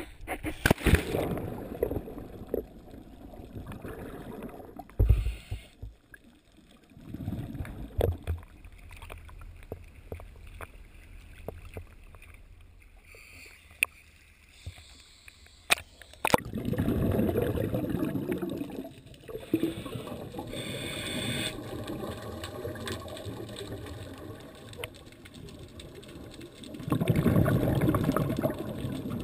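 Seawater splashing and sloshing around the camera as a scuba diver goes in and floats at the surface, then underwater gurgling and bubbling, with two longer rushes of bubbles later on, about ten seconds apart.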